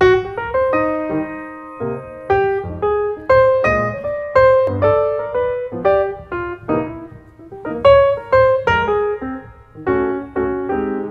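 Piano music: a melody of struck notes, several a second, each ringing and fading before the next.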